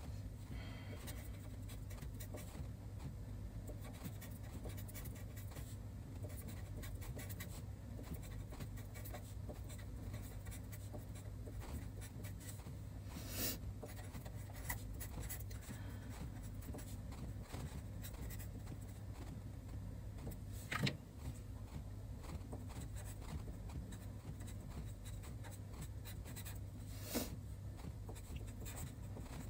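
Felt-tip marker pen writing Chinese characters on paper: a continuous light scratching of the tip as it forms strokes, with three sharper taps, the loudest about two-thirds of the way through. A steady low hum runs underneath.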